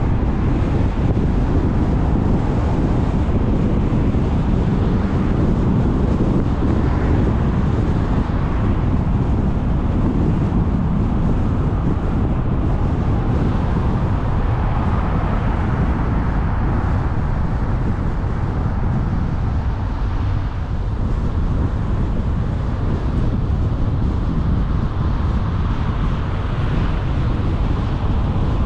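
Steady low rumble of a moving car's road and tyre noise, with wind blowing on the microphone.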